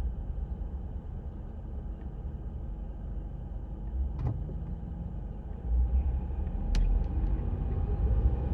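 Low rumble of a car on the road, growing louder about six seconds in as it comes closer, with two sharp clicks along the way.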